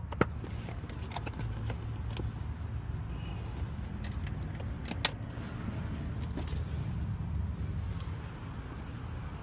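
A few sharp plastic clicks and knocks as the van's interior trim panel is handled and pressed into place: two close together at the start and one about five seconds in, over a steady low rumble.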